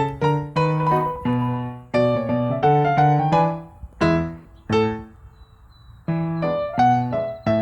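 Background piano music: single notes and chords that strike and ring away, falling to a brief lull about five seconds in before the playing resumes.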